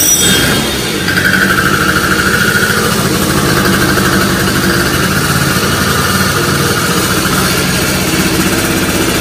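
Honda Dio Baja XR scooter's two-stroke engine, fitted with a 48 mm big-bore kit, running loud and steady just after starting, with a high whine that is strongest over the first few seconds.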